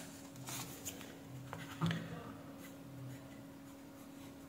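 Pen-and-paper sounds: sticky notes being handled with a few light taps, the loudest about two seconds in, and a pen drawing lines on a sticky note. A faint steady low hum runs underneath.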